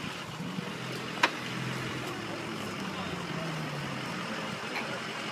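A 4x4 pickup's engine running as it drives over rough paddock ground, its pitch rising and falling a little, with a single sharp click about a second in.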